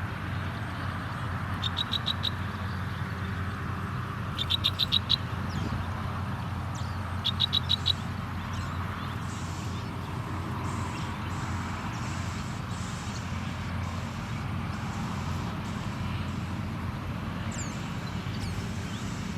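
Young sparrows chirping in three quick bursts of rapid high notes during the first eight seconds, begging-style calls of fledglings waiting to be fed. A steady low hum runs underneath.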